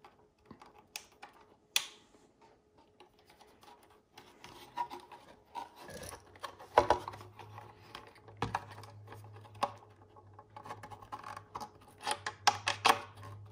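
Hand-work noise: scattered clicks, scrapes and rubbing as a spring capture nut is pushed onto a sewing-machine spool pin shaft with a metal deep well socket, and the plastic top cover is handled.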